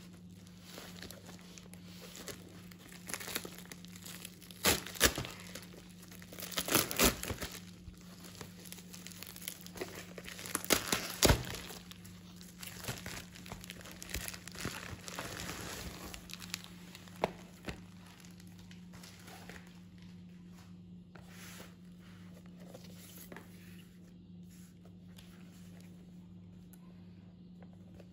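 White plastic bubble mailer being torn open and handled: crinkling plastic and tearing, with sharp loud crackles clustered in the first half and softer rustling in the second half.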